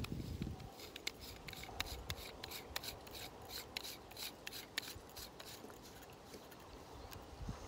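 Plastic threads rasping and clicking as an aftermarket 1.5 inch adapter is screwed into the housing of a vintage Healthways Hope-Page mouthpiece: a quick run of small clicks that dies away about five seconds in. Low handling bumps come at the start and near the end.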